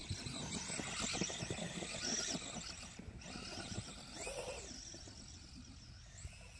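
Radio-controlled Traxxas Bandit buggy with a brushless electric motor, its motor whining up and down in pitch as it revs, while its paddle tires churn and crunch through snow. It gets fainter toward the end as the car moves off.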